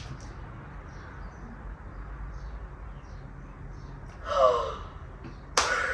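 A woman's emotional vocal sounds over a low steady hum: a short falling sigh-like cry about four seconds in, then a sharp breathy gasp near the end.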